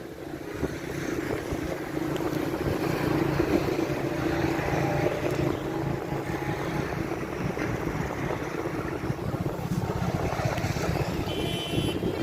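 An engine running steadily, with wind buffeting the microphone.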